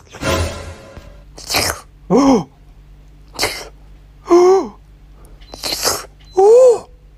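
A run of sharp, sneeze-like bursts, about four, alternating with three short calls that rise and fall in pitch.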